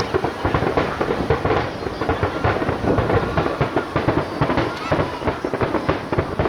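Aerial fireworks bursting in rapid succession: a dense, unbroken run of bangs and crackles with no pause between them.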